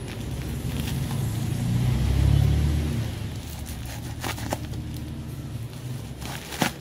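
Low vehicle engine rumble that swells and fades about two to three seconds in, with a few sharp clicks and rustles from a plastic-wrapped parcel being cut open with scissors.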